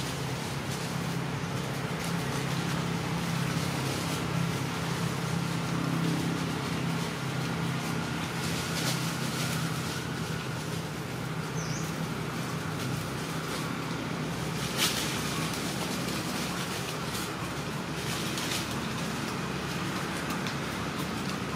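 Steady low engine hum of motor traffic, with faint scattered clicks and one sharp click about fifteen seconds in.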